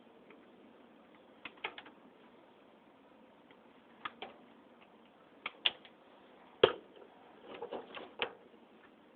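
Wire cutters snipping wire leads off ceiling fan parts: short sharp clicks in small groups of two or three, about five groups, the loudest about two-thirds of the way through.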